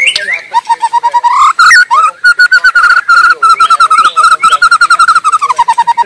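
White-rumped shama (murai batu) singing in full voice. A few quick whistled phrases give way to a long, fast run of repeated notes at one pitch, which drops lower near the end.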